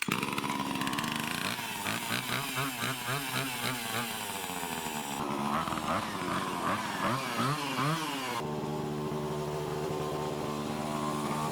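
Two-stroke chainsaw engine revving up and down repeatedly, its pitch rising and falling, then running at one steady pitch from about eight seconds in.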